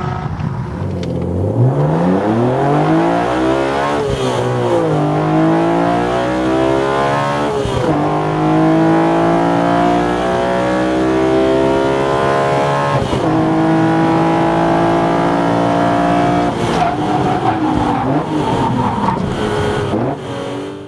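BMW E46 M3's S54 inline-six, fitted with a CSL carbon airbox and a catless AP exhaust, accelerating hard through the gears. The engine note climbs steeply and drops at upshifts about 4, 8 and 13 seconds in, then the revs fall away near the end.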